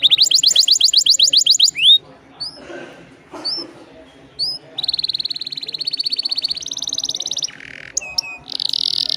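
Domestic canary singing: a fast trill of repeated upswept notes, then a few single short chirps with gaps, then a long rapid roll of repeated notes that steps up in pitch and breaks into a short lower buzzy note before the song goes on.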